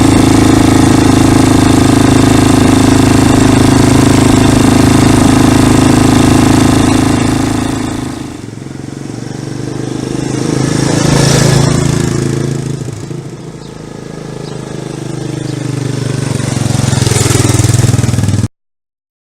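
Yamaha 350 quad bike engine running close by, steady at first, then fading about eight seconds in, swelling again, fading once more and growing louder near the end before cutting off abruptly.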